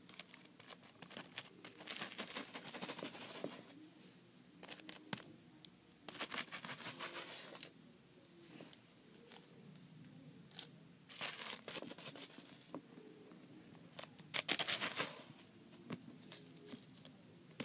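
Crinkling and rustling of a crumpled white bag as a kitten paws and bites at it, in four bursts of a second or two each, with small scattered clicks between them.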